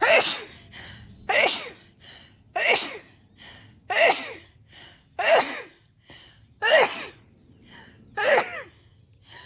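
A woman's sneezing fit: seven loud sneezes in a row, about one every second and a half, with a quick breath in between each.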